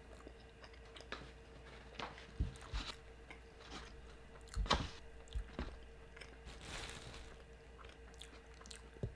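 Close-miked chewing and biting of a burrito: irregular wet smacks and soft crunches, with a few louder bites about two and a half and five seconds in.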